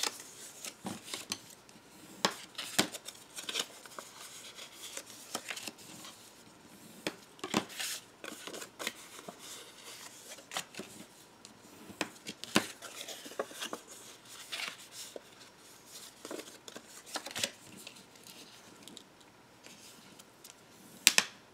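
Scored paper being folded and creased by hand: irregular soft rustles, taps and small clicks, with a sharper click near the end.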